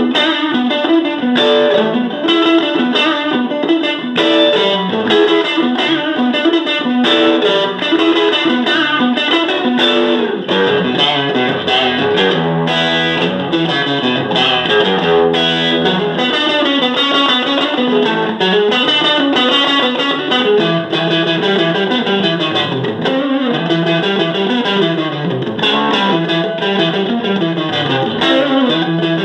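Fender Stratocaster electric guitar played through a Fender Hot Rod Deluxe tube combo amp, a continuous lead improvisation of quick notes running up and down.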